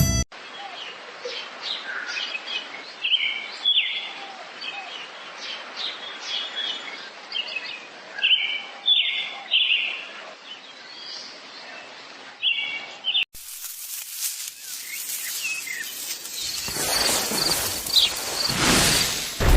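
Birds chirping, with short high calls repeated in quick succession. After a cut about two-thirds of the way through, fainter chirps give way to a steady rushing noise that grows louder toward the end.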